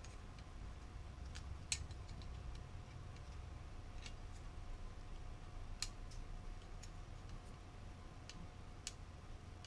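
Scattered small clicks and taps of screws, a small electronics part and a screwdriver being handled on a workbench mat, about eight at irregular intervals, over a steady low background hum.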